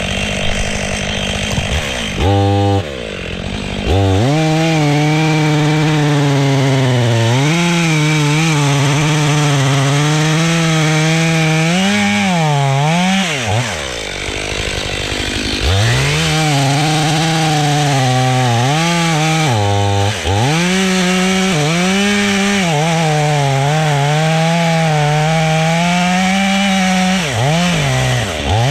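Chainsaw at full throttle cutting into a sycamore trunk being felled, its engine pitch repeatedly sagging under load and picking back up. About halfway through it eases off for a couple of seconds, then goes back into the cut.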